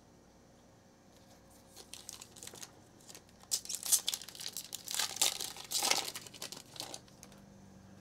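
Hands tearing open and crinkling the shiny foil wrapper of a Panini Prizm football card pack. A run of crackling rustles starts about two seconds in, is loudest in the middle, and dies down near the end.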